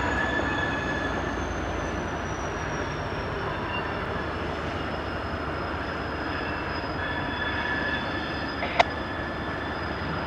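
Loaded coal unit train rolling slowly, led by a CSX SD70MACe diesel locomotive, with a steady rumble and squealing wheels. A thin high squeal slowly falls in pitch while lower squeals come and go. A single sharp knock sounds near the end.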